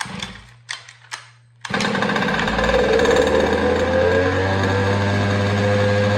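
Two-stroke petrol engine of a 1/5-scale RC buggy being started: a few short rasping strokes, then about a second and a half in it fires and runs steadily, its pitch dipping a little before it settles.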